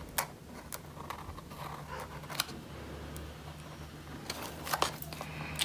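Felt-tip pen drawing on a cardboard tube: faint scratching with a few light clicks from handling the roll.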